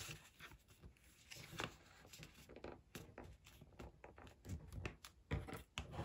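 Hands folding and pressing layered patterned paper: faint rustling and soft scraping of paper, with a few brief crinkles.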